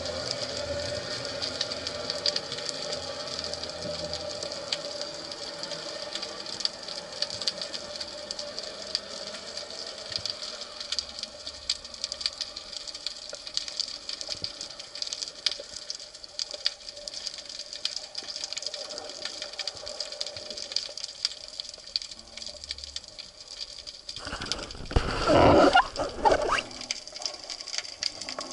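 Underwater sound along a rocky reef, picked up by the camera on a speargun: a steady, dense crackle of fine clicks. About three-quarters of the way through, a loud rush of water and bubbles lasts about two seconds.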